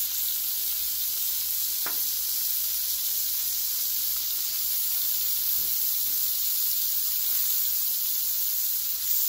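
Butter melting and pork butt steaks searing on a hot Blackstone flat-top griddle, a steady sizzle throughout, with a faint click about two seconds in.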